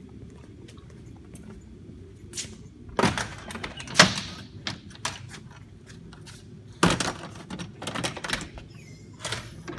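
Nose baggage compartment door of a Cessna 421C being unlatched and swung open, a sharp clack about four seconds in being the loudest, followed by a run of knocks and rattles as items inside the compartment are moved. Light footsteps come before it.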